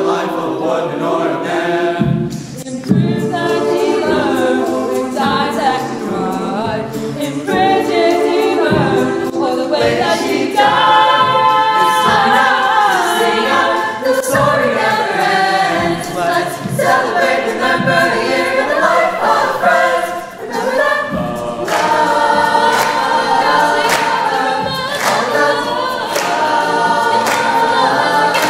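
A choir singing unaccompanied.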